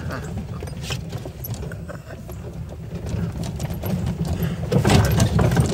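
Golf cart driving over rough woodland ground: a low rumble with irregular rattling knocks as it bounces, louder about five seconds in.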